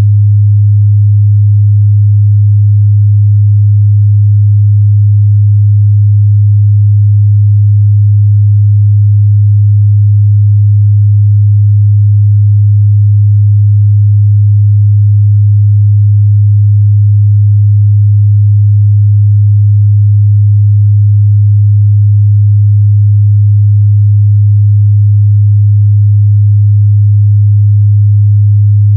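A steady, loud 103 Hz sine-wave test tone, one low, unbroken hum-like pitch with no change in level, used to check speaker and headphone mid-bass response.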